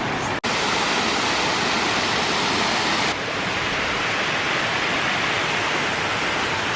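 Steady rushing of falling water from a creek or waterfall. It cuts out briefly about half a second in, and turns duller about three seconds in.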